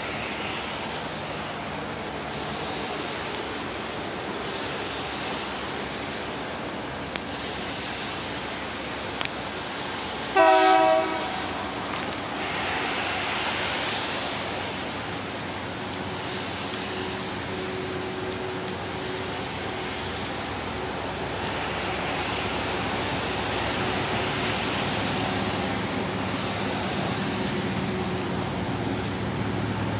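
Distant diesel freight locomotive approaching: one short horn blast about a third of the way in, then its engine rumble slowly growing louder over the second half.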